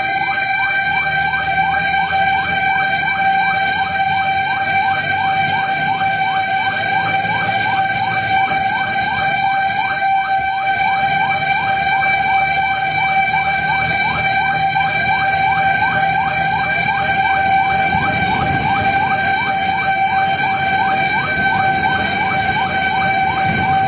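Fire truck's electronic siren in a fast yelp: a rising sweep repeating about two and a half times a second over a steady high tone, heard from inside the cab with the truck's engine running low underneath.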